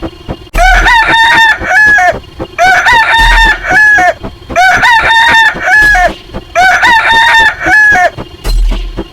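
A rooster crowing, the same crow heard four times about every two seconds, over faint regular ticking.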